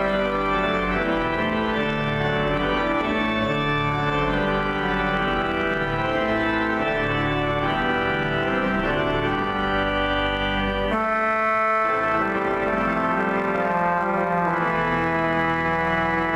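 Pipe organ playing full, sustained chords. The deep pedal bass drops out about two-thirds of the way through and comes back in near the end.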